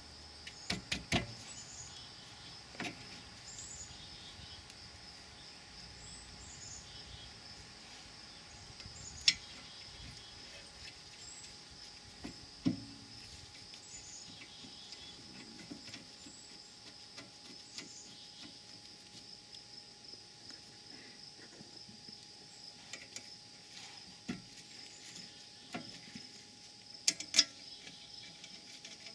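Sparse metallic clicks and clacks of a rear brake caliper and its bolts being handled and fitted onto the brake bracket by hand, loudest about nine seconds in and in a quick cluster near the end, over a steady high chirring of insects.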